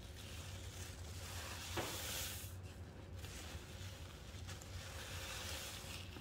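Wet, soapy powder paste being squished and stirred by hand, with a crackling fizz that swells twice, and a small knock about two seconds in.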